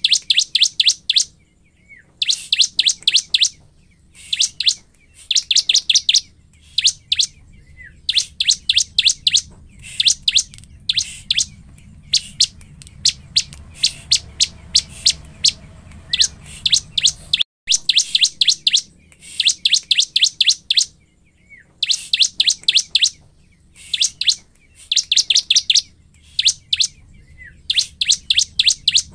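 Bar-winged prinia (ciblek) singing vigorously: trains of rapid, sharp, high repeated notes about a second long, given again and again with short pauses between.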